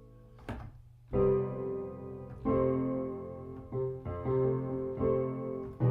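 Piano chords struck in a syncopated rhythm, about six strikes that each ring on, moving from the four chord to the five chord. A short tap comes just before the first chord.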